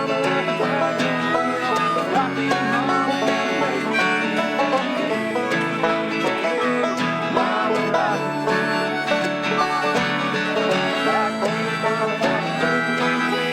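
Instrumental music playing steadily, fading out near the end.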